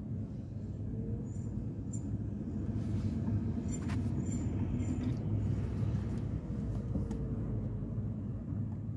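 Steady low rumble of a car's engine and tyres heard from inside the cabin while driving slowly, with a few faint clicks in the middle.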